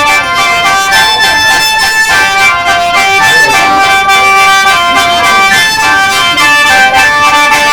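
Lusheng, the Miao bamboo free-reed pipes, playing a lively tune of held, overlapping chord notes.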